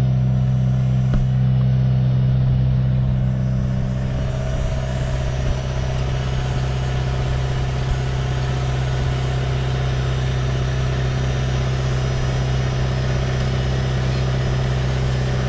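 Tractor's diesel engine running steadily at close range, a strong even hum that eases slightly about three seconds in.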